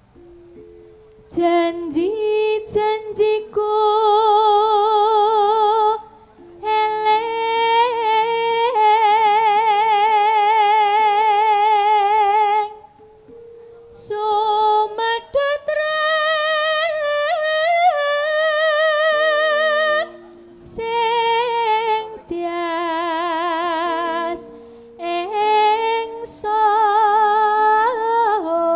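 A female pesindhen singing a slow Javanese song into a microphone, holding long notes with a wide vibrato and pausing briefly between phrases, over soft gamelan accompaniment.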